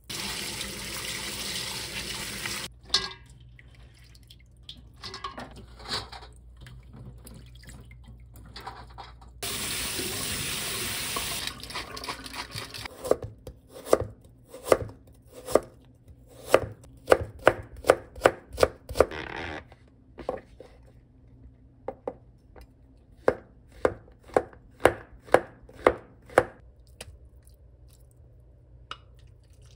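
A kitchen knife chopping carrot into thin strips on a plastic cutting board: sharp, even strikes about two to three a second over most of the second half, with a short pause partway. Earlier, two stretches of running water.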